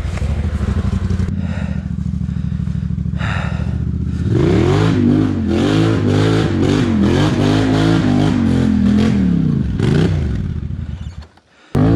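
ATV engine running at a steady low speed, then revved up and down again and again, the pitch rising and falling about once a second, as the quad is worked over rough ground. Shortly before the end the sound drops away abruptly, then the engine comes back.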